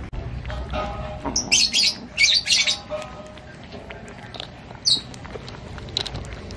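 A kitten and a mongoose lapping and licking raw egg yolk from a glass plate, with small wet clicks throughout. Sharp, high-pitched squeaky chirps come in a cluster between about one and a half and three seconds in, and once more about five seconds in.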